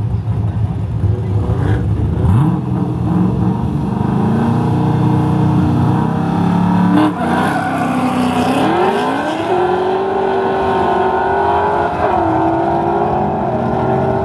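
Two drag cars, a C5 Corvette and a fourth-generation Camaro, revving and holding their engines at the starting line, then launching a little past halfway and accelerating away, with a gear change about three seconds later.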